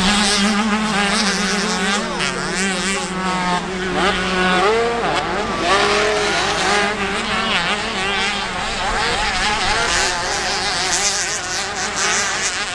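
Several mini motocross bikes racing, their engines revving up and down again and again as the riders work the throttle and shift. A steady low drone sits under them for the first few seconds.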